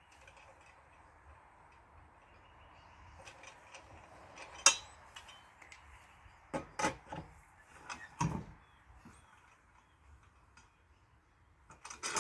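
Scattered metal clinks and knocks from taking a car wheel's lug nuts off by hand, the sharpest clank about four and a half seconds in and a few more knocks later.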